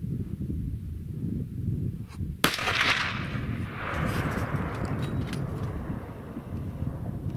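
A single rifle shot about two and a half seconds in, its report echoing back off the hillsides and fading over a couple of seconds.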